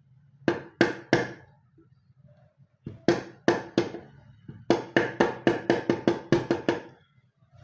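Repeated hammer strikes, each with a short ringing note at the same pitch. They come in three groups: three quick blows, then four, then a run of about eight at roughly four a second.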